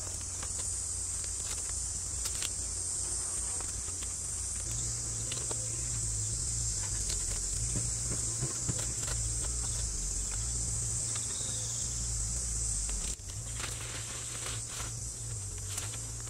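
Steady high-pitched drone of insects, with a low rumble underneath and scattered light clicks and knocks from handling the wooden poles of the frame.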